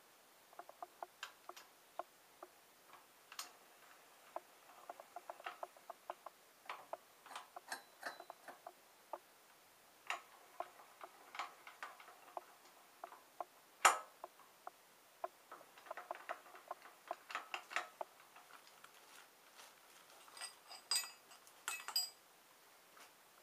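Irregular small metallic clicks and taps from hands working the tool post and carriage of a metal lathe. There is one sharp louder click about fourteen seconds in, and near the end a few clinks that ring briefly.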